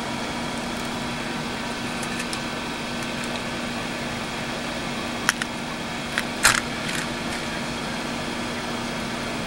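A few sharp clicks and a brief rattle of small loose screws shaken in a plastic cup, over a steady background hiss with a faint hum.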